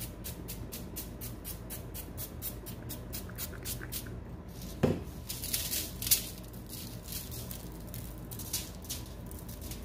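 Trigger pump of a butter-spray bottle spritzing rapidly, about five quick sprays a second, for the first four seconds. A knock comes about five seconds in, then brown sugar is scattered over the meat and foil with a light rustling hiss.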